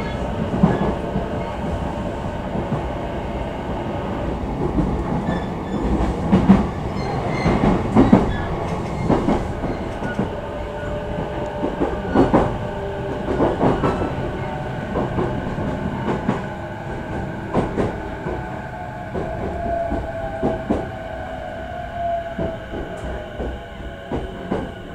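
E233-5000 series electric train running, heard from inside the car: a steady rumble with irregular clacks of the wheels over rail joints. Over the last several seconds a whine glides down in pitch and the running noise eases as the train slows.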